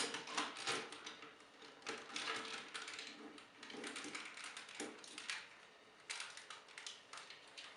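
Hard plastic parts of a Transformers Energon Tidal Wave figure clicking, knocking and rattling as the pieces are handled and snapped into place, in irregular bursts of small clicks, busiest in the first second.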